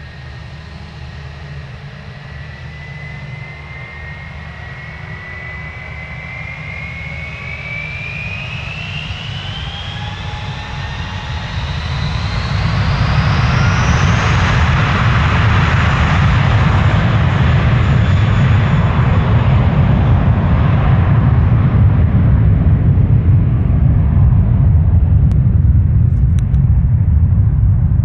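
Airbus A320-family twinjet's engines spooling up to takeoff thrust: a whine climbing steadily in pitch over about twelve seconds while the sound grows louder. After that comes a loud, steady jet roar with deep rumble as the aircraft accelerates on its takeoff roll.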